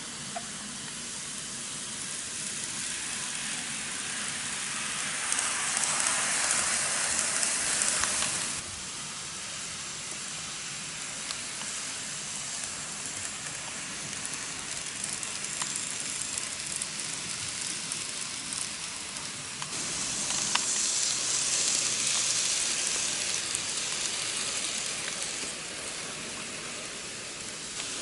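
N-gauge model trains of Kintetsu electric cars running on the layout's track: a steady hiss of wheels and motors on the rails, louder twice as a train runs close by, with a few faint clicks.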